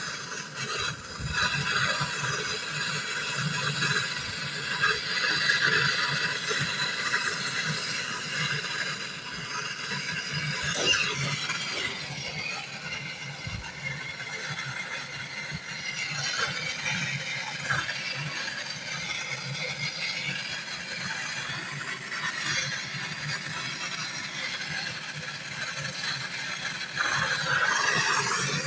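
Gas torch burning with a steady hiss while the copper tubes of a refrigerator compressor are brazed.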